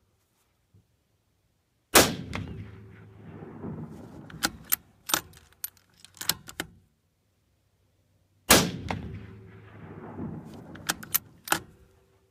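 Two rifle shots from a bolt-action Remington 700 in .308, about six and a half seconds apart, each ringing out and fading over a second or two. After each shot comes a quick run of metallic clicks as the bolt is worked to eject the case and chamber the next round.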